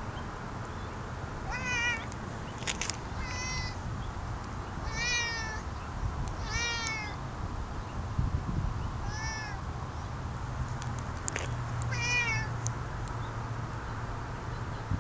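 Domestic cat meowing about six times, one call every two seconds or so, each short call rising then falling in pitch.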